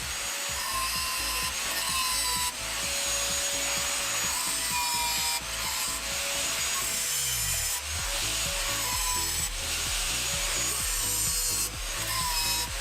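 Continuous rasping, sawing-like tool noise from work to take the front hub out of a spoked motorcycle wheel. It comes in several stretches that change abruptly.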